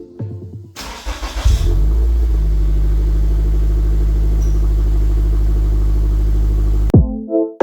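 Car engine cranking and catching about a second in, then running at a steady speed, stopping abruptly near the end.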